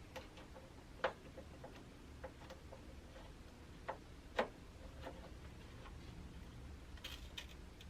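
DDR4 RAM module being pressed into a motherboard DIMM slot: faint, scattered plastic clicks and crunchy creaks from the slot and its latch. A sharper click comes about a second in and two more around four seconds in.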